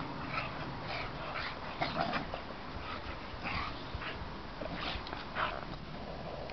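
Boxer dogs play-fighting, giving a string of short, high yips and whines every half second to a second.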